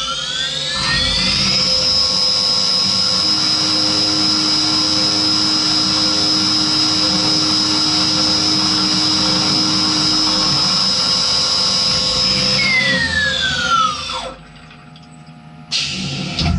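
Skyfire SVM1 CNC milling machine spindle spinning up to speed with a high whine, running steadily for about twelve seconds, then spinning down and stopping. A few short loud bursts of machine noise follow near the end.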